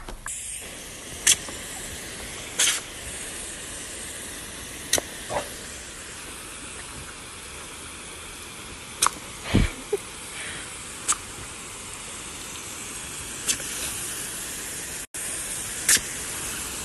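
Water jetting from a garden hose spray nozzle as a steady hiss, with a few short sharp clicks and knocks scattered through it.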